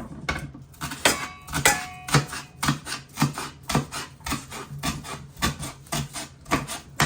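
A kitchen knife chopping vegetables on a cutting board, in a steady rhythm of about two strokes a second.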